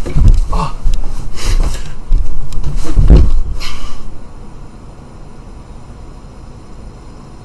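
A man's body hitting a bed and then the floor in a failed backflip: a run of heavy thuds and rumbling clatter, the loudest about three seconds in. After that only a low room hiss remains.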